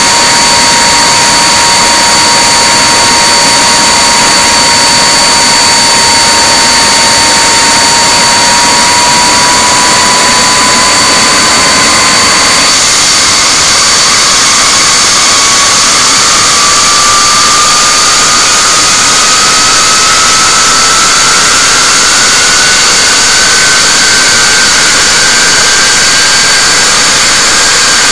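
The Handley Page Victor K2's four Rolls-Royce Conway turbofans running on the ground, very loud and steady, with a high whine. A second whine climbs slowly in pitch from about a third of the way in, and the engine noise gets stronger about halfway through.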